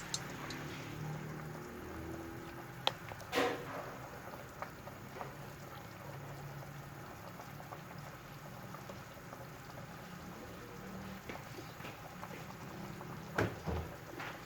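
A pot of chicken tinola soup boiling steadily, with a few sharp knocks, two about three seconds in and two near the end.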